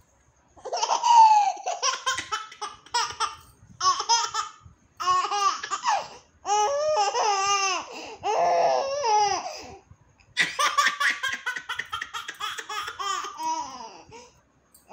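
Baby girl of about nine months laughing: repeated bursts of high-pitched giggling, broken by short pauses.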